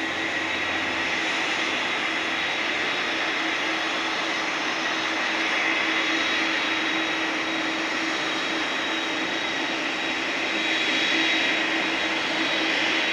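Airport apron noise: the steady rush and high whine of jet turbines running, with no single event standing out.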